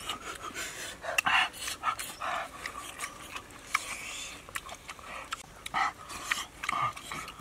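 A man eating: chewing and lip-smacking clicks, with short, hard breaths through the mouth between bites.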